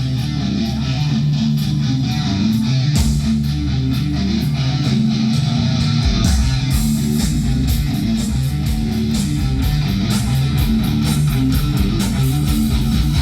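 A live rock band playing: electric guitar over a bass line and drums.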